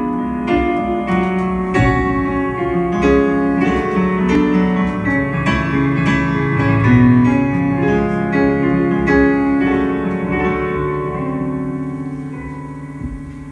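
Stage keyboard playing a piano sound: a solo intro of struck chords and melody notes left to ring, growing softer and sparser over the last couple of seconds.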